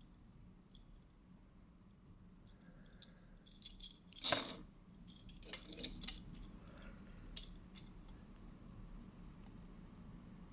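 Light clicks, taps and short rustles from hands handling a small toy excavator and its packaging. The loudest clatter comes a little over four seconds in, and a run of smaller clicks follows over the next few seconds.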